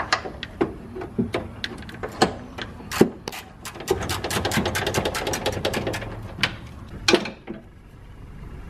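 Ratchet wrench clicking in quick runs as a radiator mounting bolt is undone, with a few sharper knocks of metal on metal.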